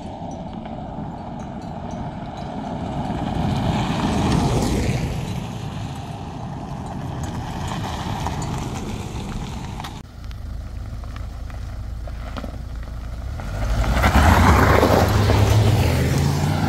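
Mahindra SUVs driving fast past on a dirt road, engine and tyre noise swelling and fading as they go by. One car passes about four seconds in, and a second, louder pass with a rising engine note comes near the end.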